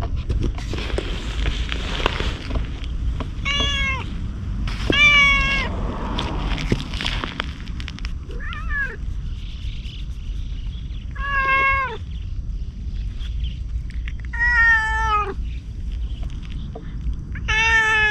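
Stray orange tabby cat meowing repeatedly: six short meows a few seconds apart, one of them fainter. A rustle comes near the start.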